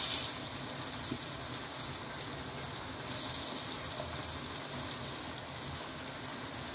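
Plantain slices sizzling as they fry in butter in a pan: a steady hiss that swells briefly about three seconds in.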